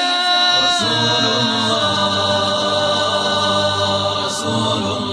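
Background music: an a cappella Arabic nasheed, voices holding a long sustained chord without words, with a low hummed drone coming in about a second in.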